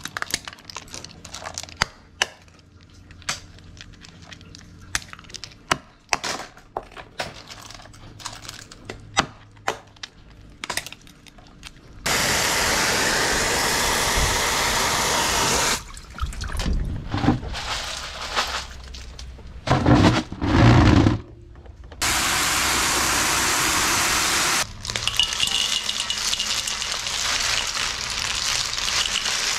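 A hand cutter snipping the tips off siput sedut mangrove snail shells with sharp clicks, one after another; the tips are cut so the meat can be sucked out later. Then comes a rush of running water over the snails in a plastic basket, broken by knocks and a few heavy thuds. Near the end the snails are tipped into a wok of yellow gravy.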